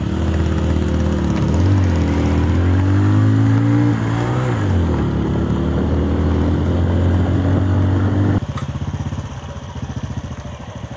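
Motorcycle engine running close by, its pitch rising as it speeds up about two seconds in and dropping back near five seconds. Near the end the sound changes suddenly to a quieter motorcycle engine idling with an even, steady beat.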